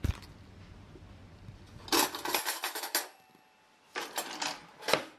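Metal cutlery clinking and rattling in a kitchen drawer as a utensil is picked out: two spells of jangling, about two and four seconds in, then a single sharp clack near the end.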